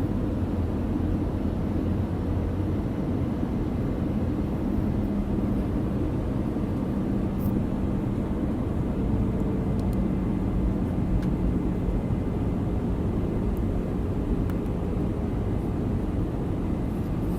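Steady low rumble of an Airbus A318 airliner's engines and airflow heard inside the passenger cabin on approach, with a steady low hum and a few faint ticks.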